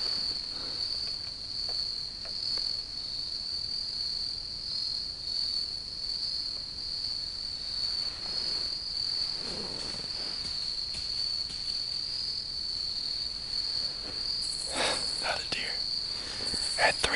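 Steady high-pitched insect chorus, a continuous trill like crickets, with a few brief rustles near the end.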